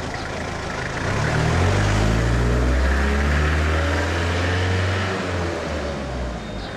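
A motor vehicle's engine passing close by: a low rumble that rises in pitch about a second in, holds steady as the loudest sound, then fades away near the end, over street noise.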